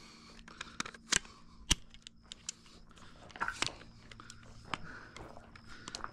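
Handling noise of a rifle and gear: scattered clicks and light crunching of steps on dry dirt, with two sharp clicks about a second and a half in.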